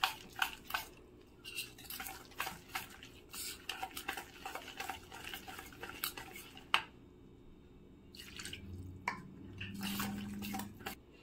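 A spoon stirring semolina and curd batter in a bowl, with irregular clinks and scrapes of the spoon against the bowl.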